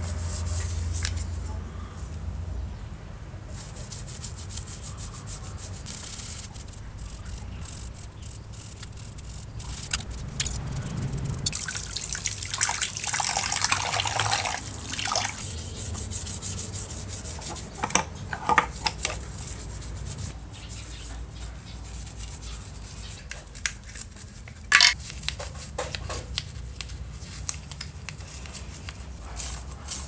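Small brush scrubbing wet rotary-telephone parts, the metal dial plate and then the plastic handset, with water, in quick scratchy strokes that grow louder for a few seconds in the middle. A few sharp clicks of parts being handled.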